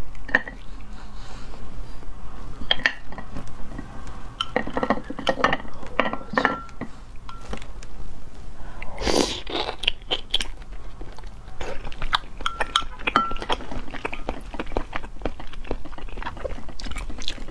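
Close-miked chewing of large sea snail meat: firm, crunchy bites and wet mouth clicks and smacks, with a louder cluster of bites about halfway through.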